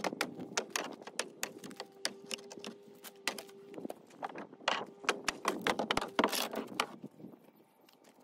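Irregular light knocks, clicks and a few scrapes of someone walking on a wooden deck and handling a sledgehammer, with a faint steady hum behind them for about the first half.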